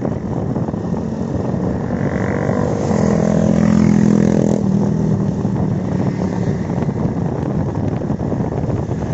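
Motorcycle engines running as bikes ride past over a steady rush of wind and road noise. One engine note swells about two seconds in, is loudest around four seconds, then fades.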